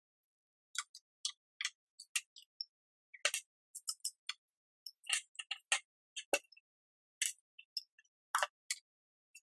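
Scattered short clicks, taps and clinks from handling small parts: washers and nuts set down, bubble wrap crinkling as it is pulled off steel rods, and the threaded steel rods clinking together on a workbench. The strokes come in quick ones and twos, thickest in the middle, with a duller knock a little past six seconds.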